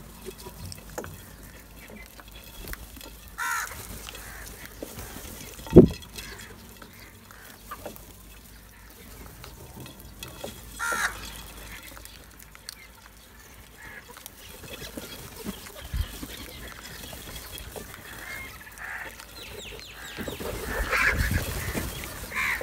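A flock of house crows feeding, with a few harsh caws spaced several seconds apart. One sudden low thump comes about six seconds in. Near the end there is a flurry of wingbeats, with more cawing.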